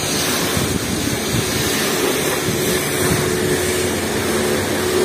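Steady rushing noise of a self-service car wash in strong wind, with a thin steady machine hum underneath.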